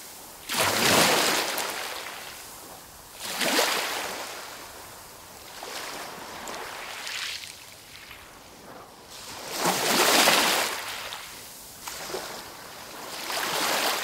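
Sea waves washing onto the shore, each swelling and falling away every three to four seconds, the loudest about ten seconds in.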